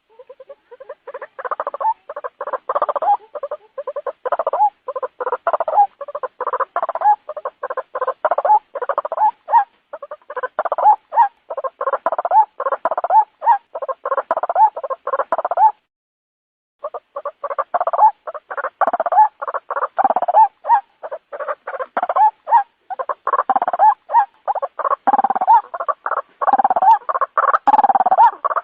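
White-breasted waterhen (ruak-ruak) calling: a fast, unbroken series of croaking 'kru-ak' notes. The calls stop for about a second, some sixteen seconds in, then start again.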